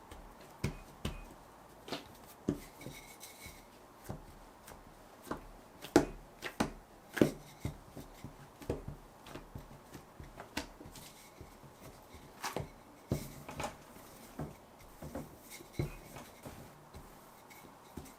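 Irregular light taps and knocks of hands and kitchen utensils working food on a countertop, about one or two a second, with a few sharper knocks.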